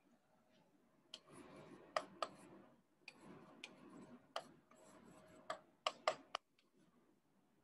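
Pen writing on an interactive display's screen: faint scratching strokes and sharp taps in two short runs, the loudest taps a couple of seconds in and again near the end.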